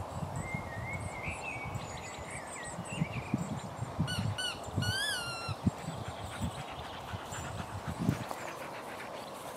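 Two dogs wrestling on grass: irregular soft thuds and scuffling from their bodies. There are thin high chirps in the first half, and a few short squeaky calls come about four to five seconds in.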